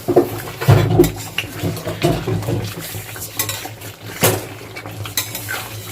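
A metal utensil scraping and clinking against a cooking pot as a thick chicken curry is stirred, with several sharp knocks, the loudest about four seconds in.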